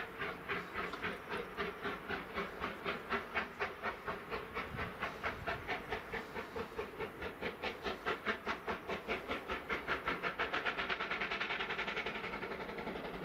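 Steam locomotive working under steam, its exhaust beating in an even, fast chuff of about four to five beats a second. Near the end the beats blur into a hiss and the sound starts to fade.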